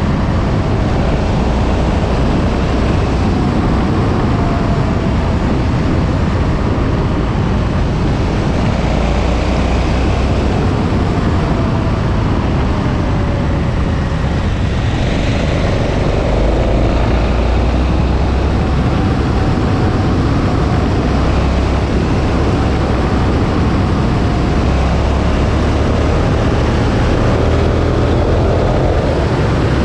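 KTM 1290 Super Adventure's V-twin engine pulling along the road, its pitch rising and falling with the throttle through the bends, under a heavy rush of wind on the microphone.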